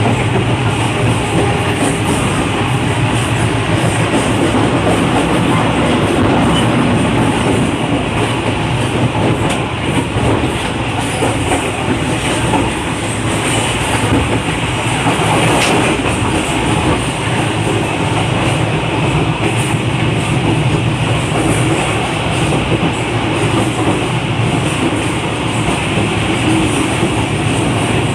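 Passenger train carriage running at speed, heard from the open vestibule between carriages: a loud, steady rumble of wheels on rail, with the clickety-clack of the rail joints.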